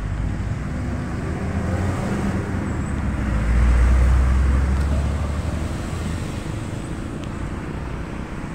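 Road traffic, with a heavy vehicle's low engine rumble passing, loudest about three to five seconds in.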